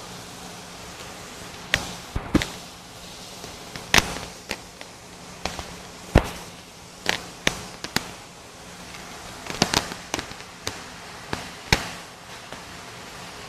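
About fifteen sharp, irregularly spaced knocks and clicks, the loudest around four and six seconds in, over a steady low hum.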